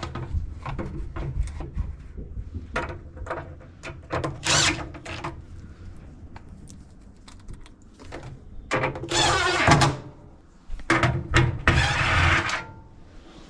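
Small hard objects clicking and rattling against dryer sheet metal and blower fins as coins and guitar picks are worked loose by hand. Two loud bursts of hissing noise come about nine and eleven seconds in.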